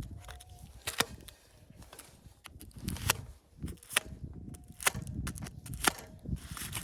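A series of sharp knocks or cracks, about five, roughly a second apart, each with a dull thud underneath.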